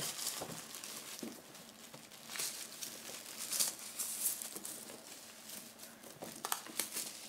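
Thin plastic wrapping rustling and crinkling as hands handle it around a newly unboxed pet feeder, in irregular spells of rustle.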